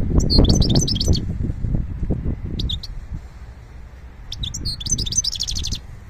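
Caged songbirds chirping in short, bright bursts: one run right at the start, a brief call in the middle, and a longer run of rapid chirps near the end. Under them, a low rumble, loudest in the first two seconds, then fading.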